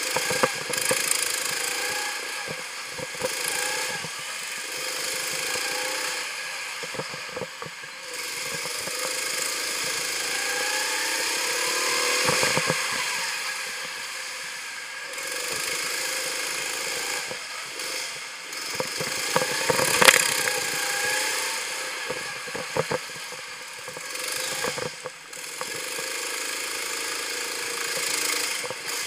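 Go-kart engine running as the kart laps, its pitch rising and falling with the throttle, over steady wind and road noise. Short knocks and rattles from the kart come throughout, with the loudest cluster about two-thirds of the way through.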